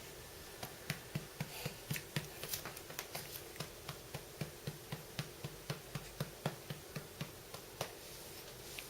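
Quick run of soft gulping clicks from a person's throat, about three a second, as air is swallowed to force a burp; the clicks stop about eight seconds in and no burp comes.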